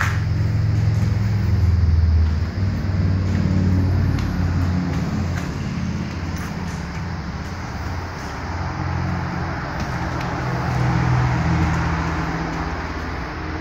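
A motor vehicle on the road outside: a steady low engine hum with tyre noise, swelling about two seconds in and again later on.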